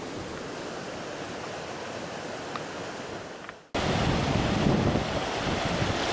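Steady rush of running creek water with wind on the microphone. It cuts out for a moment about two-thirds of the way through and comes back louder.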